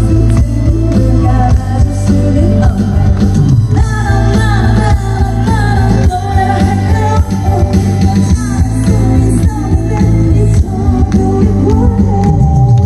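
A woman singing live into a microphone over loud amplified backing music with a steady beat, heard through the stage's PA speakers.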